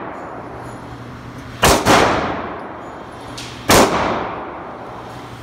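Three handgun shots inside a concrete indoor range: two in quick succession a little under two seconds in, then one more about two seconds later, each followed by a long echoing tail.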